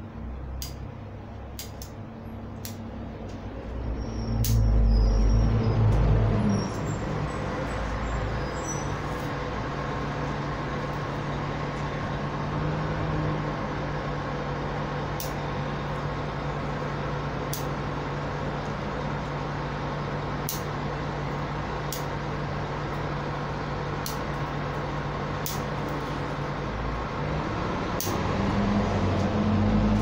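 Bonsai pruning scissors snipping elm shoots, a sharp click every second or so, over a steady low motor rumble that swells about four seconds in and again near the end.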